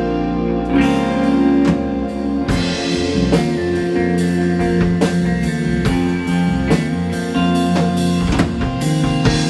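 Rock band playing live: guitars ringing over a drum kit with regular cymbal and drum hits.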